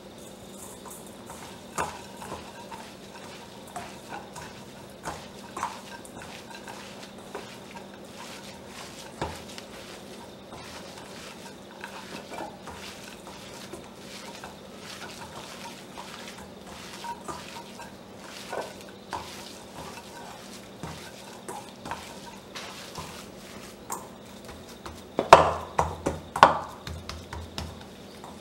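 Raw ground beef being mixed and kneaded by hand in a stainless-steel bowl with garlic, sugar and sliced green chillies: soft squishing with scattered light taps against the bowl, and a few louder knocks near the end as the meat is pressed against the bowl.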